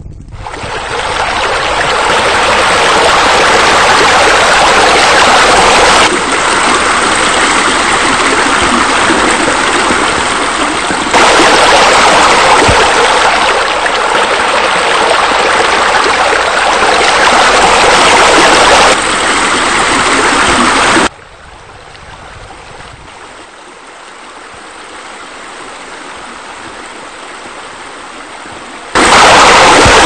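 Steady rushing of waterfall and stream water, like the spill of rock waterfalls into a pool. It jumps abruptly in level several times and drops much quieter for about eight seconds in the last third before coming back up loud.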